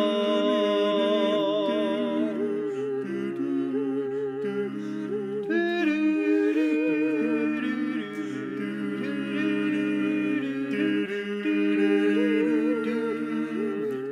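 Mixed-voice a cappella quartet, one woman and three men, singing a wordless outro in close harmony: sustained chords that change every second or two.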